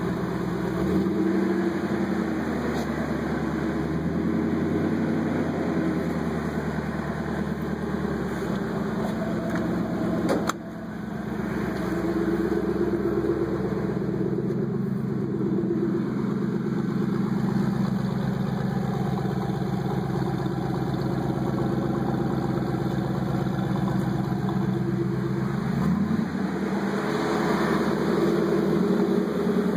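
Pickup truck engine idling steadily, with a single sharp click about ten seconds in.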